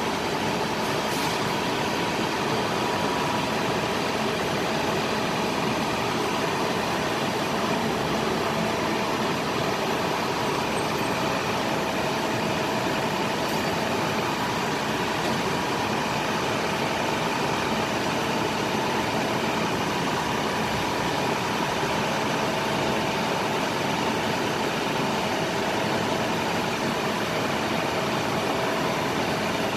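International DT466 7.6 L inline-six turbo diesel engine idling steadily, with a steady whine over the engine note.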